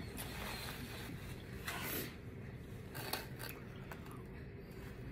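Quiet mealtime handling noises: a paper napkin rubbing, and a fork scraping food out of a foam takeout box, with two short scrapes about a second apart near the middle.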